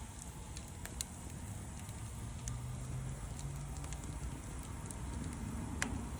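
Wood fire crackling, with scattered sharp pops, the loudest about a second in and near the end, over a low steady rumble.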